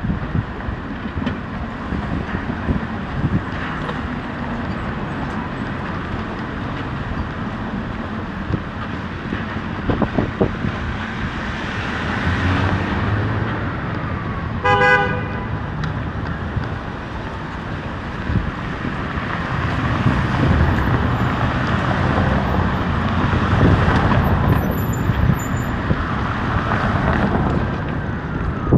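City street traffic: vehicles passing one after another over a steady road noise, with a single short car horn toot about halfway through.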